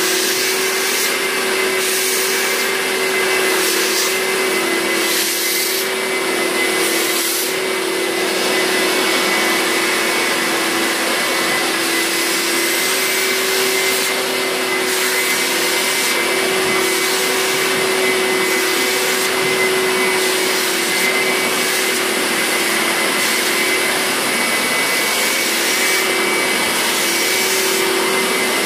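Upholstery wet-extraction vacuum running steadily with a humming motor, its clear hand tool drawn over the wet sofa fabric to suck out the water. The suction sound changes about once a second with each stroke during the first several seconds.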